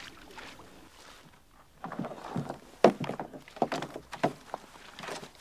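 Canoe and packs being handled: a run of irregular knocks, thumps and rustles beginning about two seconds in, with one sharp knock a little later the loudest.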